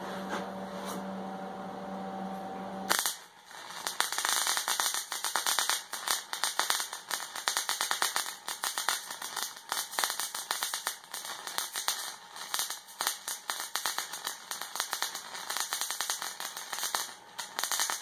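Wire-feed (MIG) welding arc crackling and sizzling on steel as a bead is run; it starts about three seconds in and cuts off at the end. Before the arc strikes there is a steady hum.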